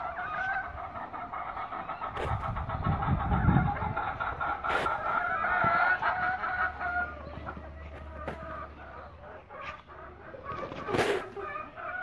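Chickens clucking with a rooster crowing: long drawn-out calls through the first half, quieter calling later. There are a few sharp knocks and a brief low rumble a few seconds in.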